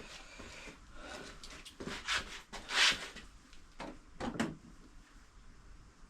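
Dirt bike fuel tank and its brackets being fitted by hand: a series of short knocks, scrapes and rubs, the loudest a scrape about halfway through.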